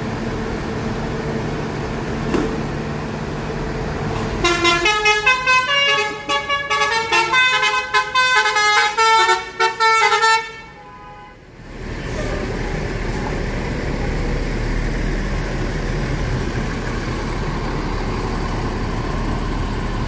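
Bus "basuri" telolet horn playing a quick multi-note tune for about six seconds over a coach's running diesel engine. After the tune the engine rumbles on as the coach pulls away.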